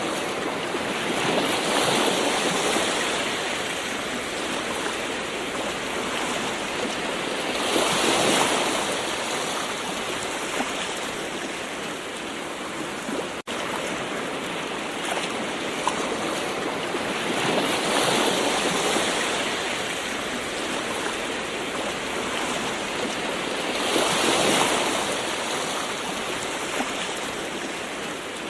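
Gentle ocean waves: a steady rush of surf that swells louder as each wave comes in, several times over. The sound drops out for an instant about halfway through.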